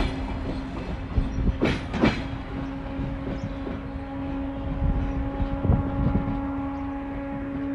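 Passenger train rolling past as it arrives at a station, its wheels clacking over rail joints: two sharp clacks about two seconds in, then sparser, softer knocks. A steady hum runs underneath.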